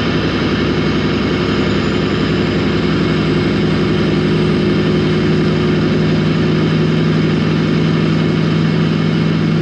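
Semi truck's diesel engine pulling at a steady highway cruise, a constant low drone heard from inside the cab over road and wind noise.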